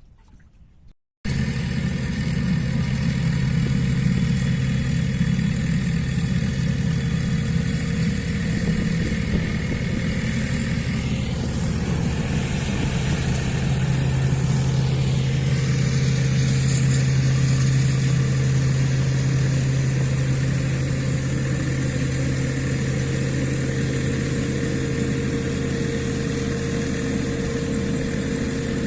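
An engine running steadily at a constant speed with a low, even hum. It starts abruptly about a second in.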